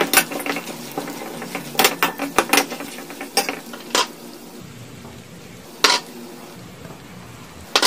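Steel spatula stirring and scraping a dry mix of peanuts, roasted gram, coconut slices and red chillies in a stainless steel kadai, with quick clinks of metal on metal. The stirring stops about four seconds in, and two sharp clicks follow, about two seconds apart.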